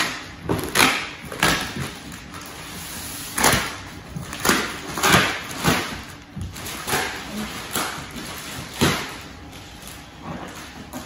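Clear plastic wrapping on a rolled rug being pulled and worked open by hand, crinkling in a series of short, irregular rustles.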